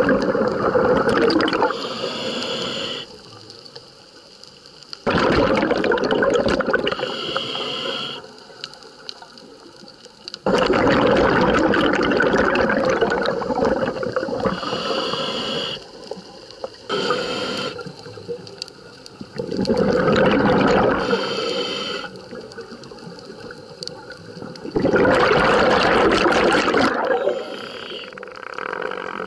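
Scuba diver breathing through a regulator: a rush of exhaled bubbles every five seconds or so, each lasting a few seconds, with quieter stretches between breaths.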